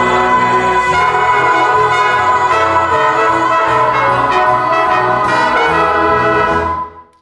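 Pit orchestra playing a loud musical-theatre number, led by trumpets and trombones. The music stops suddenly near the end.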